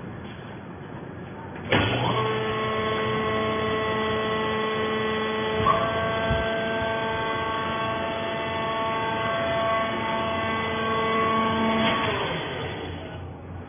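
Fiber baler's hydraulic power unit starting suddenly and running with a steady electric hum and whine for about ten seconds, with a single knock partway through, then winding down near the end.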